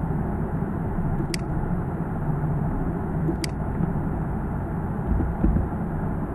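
Steady low rumble of background noise, with two sharp computer-mouse clicks about two seconds apart and a dull thump near the end.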